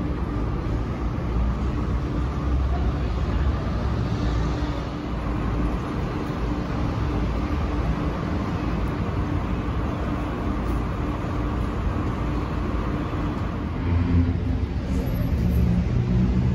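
Steady low rumble of distant road traffic with a faint steady hum, growing a little louder about fourteen seconds in.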